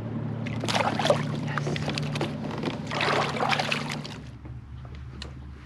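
Water splashing and trickling at the side of a kayak, in two short rushes, over the steady hum of the kayak's electric trolling motor.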